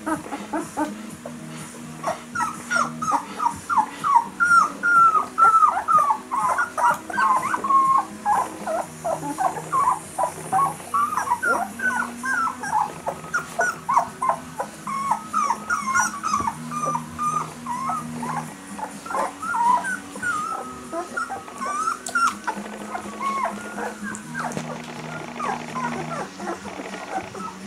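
A litter of 13-day-old German Shepherd puppies squeaking and whimpering, several short falling cries a second, as they jostle at the mother's teats. Background music with low held notes runs underneath.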